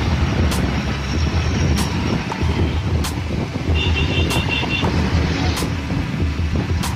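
Road traffic heard from a moving vehicle on a wet road: a steady engine rumble with tyre hiss. Sharp clicks come about every second and a quarter, and a quick run of about six short high beeps sounds about four seconds in.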